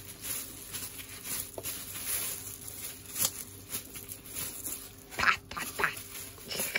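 Minced beef mixture squishing and a thin plastic food-handling glove crinkling as hands scoop and pat it into a hamburger patty, with irregular soft handling sounds and two louder squishes near the end.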